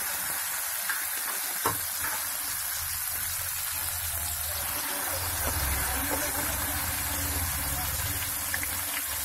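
Pieces of boiled besan gatte (gram-flour dumplings) deep-frying in hot oil with a steady sizzle, plus a sharp click about two seconds in.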